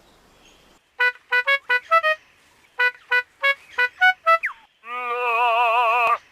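Male lyrebird singing its display song, full of mimicked sounds: a run of short, clipped, evenly pitched notes, then from about five seconds in a steady warbling tone that wavers quickly up and down.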